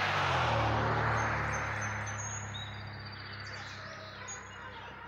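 A passing vehicle: a rushing noise with a low hum that is loudest about half a second in, the hum dropping slightly in pitch as it fades away. Small birds chirp with short high notes in the second half.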